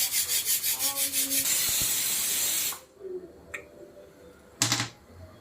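Loud hiss from the cooking pots of boiling rice and mutton on a high gas flame, pulsing several times a second and then steady. It cuts off abruptly a little under three seconds in, leaving a much quieter background with one short burst near the end.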